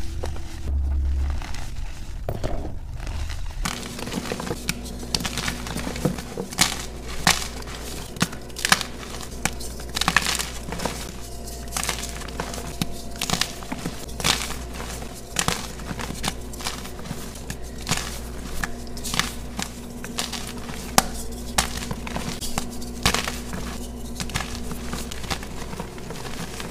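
Soft gym chalk blocks crumbled and crushed by hand, with many quick, irregular crunches and crackles as the chalk breaks apart and falls into loose powder.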